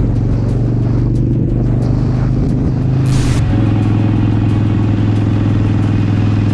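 Motorcycle engines running at steady speed while riding: first a Harley-Davidson Sportster Iron 883's air-cooled V-twin, then, after a brief whoosh about three seconds in, a different motorcycle's engine holding a steady note.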